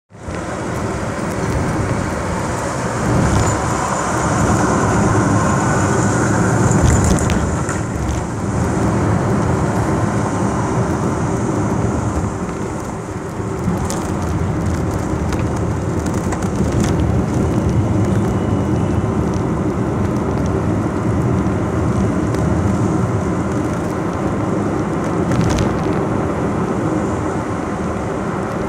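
Steady rumbling rush of a vehicle travelling at speed, heard from on board, with a few brief clicks along the way.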